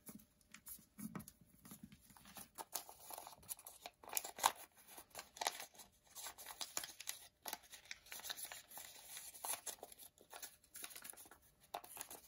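Folded origami paper rustling and crinkling as a triangle-twist tessellation is handled and its creases pressed, a continuous run of small, irregular crackles.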